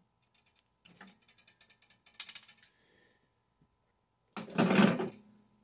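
Small metal parts from a scrapped microwave clicking and rattling as they are handled, then a louder clatter about four and a half seconds in.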